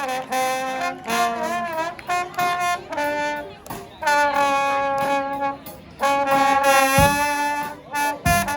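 A brass band playing live: trumpets, trombones and saxophones in short phrases and held notes, with two low thumps near the end.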